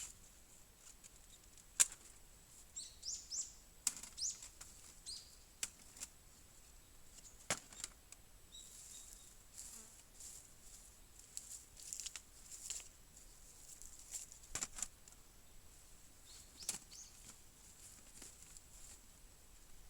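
Wood fire crackling, with irregular sharp pops, the loudest about two seconds in, over a faint high hiss. Short high chirps come between the pops a few seconds in.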